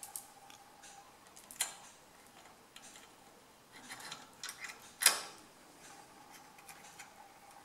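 Steel saw chains clinking against a steel chainsaw bar and its magnetic hooks as they are hung up by hand: scattered light metallic clicks, the sharpest about five seconds in.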